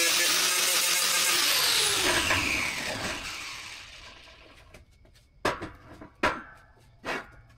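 Background music fading out over the first few seconds, then three sharp metal clanks a little under a second apart as steel parts are handled and set down on a steel welding table.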